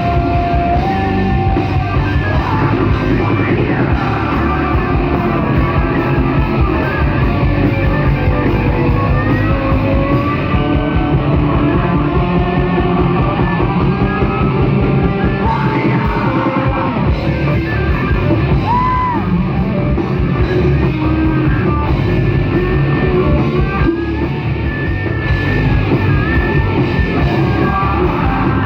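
Live rock band playing loud: distorted electric guitars, bass and drums, with a melody line bending up and down in pitch over them, recorded through a phone's microphone from the crowd.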